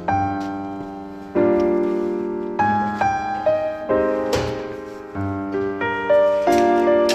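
Background piano music: chords struck roughly once a second, each dying away, with faint clicks between.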